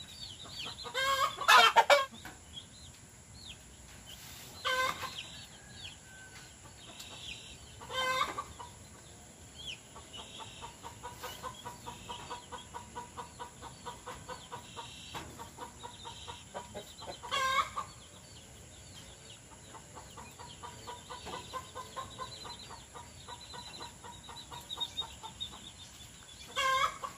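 Farmyard chickens clucking: a run of quick, even clucks with five louder calls standing out over it.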